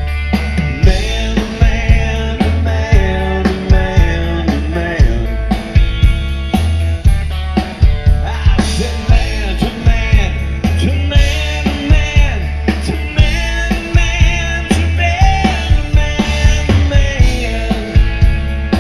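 Rock band playing live: a steady drum beat and bass under an electric guitar lead with bent, wavering notes in an instrumental passage.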